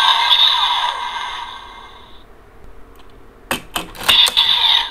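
Electronic sound effect from a DX Build Driver toy belt fitted with the Hazard Trigger: a ringing tone that fades away over about two seconds. Later come sharp plastic clicks as a Fullbottle is pushed into the belt's slot, with the electronic tone briefly back.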